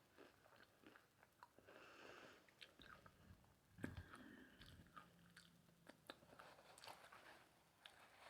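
Quiet close-up chewing of a taco, with small crunches and mouth clicks, and one louder knock about four seconds in.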